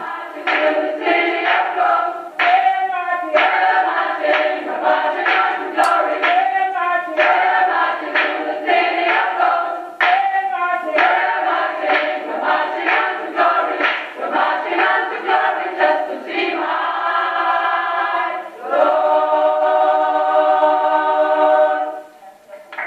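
Gospel choir singing, closing on a long held chord about three seconds before the end.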